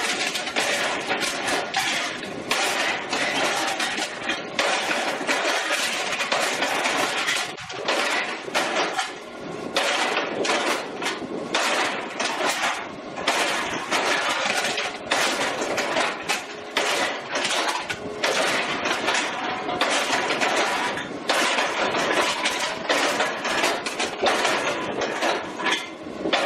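Hopper-fed can crusher built on a flywheel rack-and-pinion log-splitter drive, running and crushing a whole load of aluminium cans: a continuous metallic clatter of cans being struck and flattened in quick, irregular succession.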